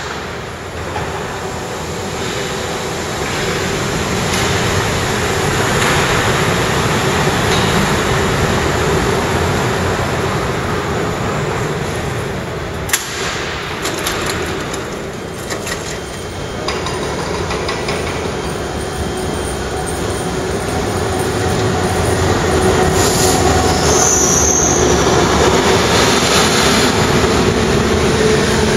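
Wuppertal Schwebebahn suspension railway car running along its overhead steel rail into a station and stopping, steel wheels squealing on the rail, with one sharp click about 13 seconds in. The train sound grows louder again over the last few seconds.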